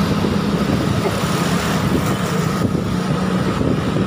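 Motorcycle engine running steadily while riding along a city road in traffic, a constant low drone with road and air noise.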